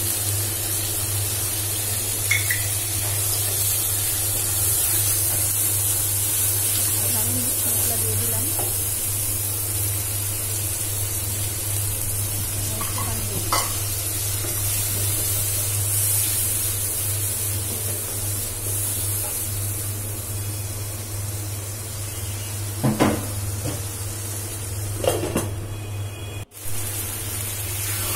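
Spice paste in mustard oil sizzling steadily in a nonstick frying pan as it is fried down (kasha) and stirred with a wooden spatula, with a few brief scrapes and knocks of the spatula against the pan. A steady low hum runs underneath.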